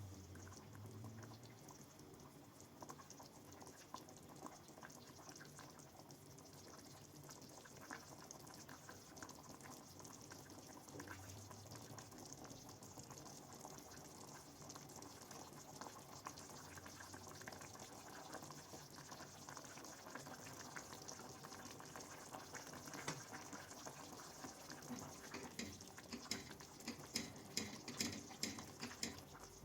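Faint water sounds from kitchen cooking, a soft steady hiss with light crackling ticks that quicken near the end.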